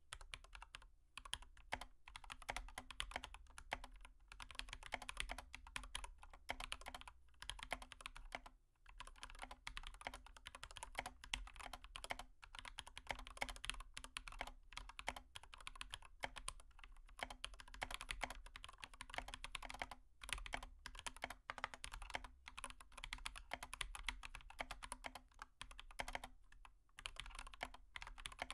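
Dense, irregular clicking and tapping, like fast typing on a keyboard, over a faint steady hum.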